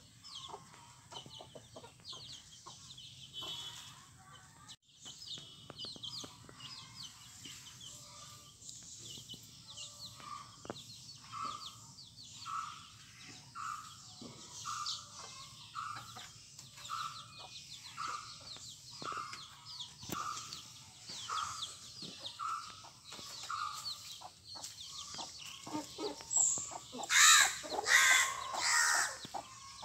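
Young chicks peeping continually while a mother hen clucks softly and steadily, about one cluck every 0.7 seconds through the middle. A louder chicken call rings out near the end.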